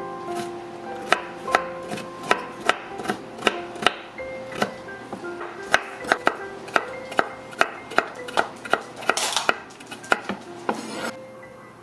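Santoku knife chopping carrots on a wooden cutting board: sharp knocks of the blade on the board, about two to three a second, with a couple of short scraping rushes in the last few seconds. Soft background music plays underneath.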